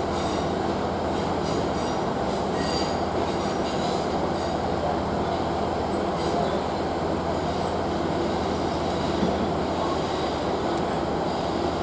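Heavily loaded aggregate train moving slowly: a steady rumble with a low hum, and a few faint high wheel squeals in the first few seconds.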